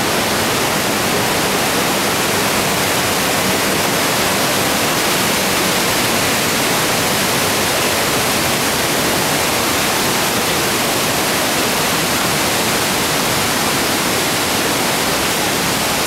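Düden waterfall's falling water, a loud, steady rush of noise spread across all pitches with no breaks.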